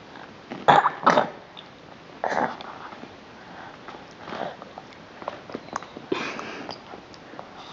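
A baby's short breathy huffs, sniffs and mouth noises while being spoon-fed, several separate bursts a second or more apart.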